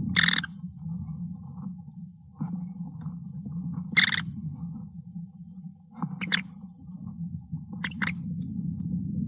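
Female American kestrel feeding a newly hatched chick pieces of vole in a wooden nest box: low continuous scraping and rustling in the box, with four short, sharp high-pitched sounds.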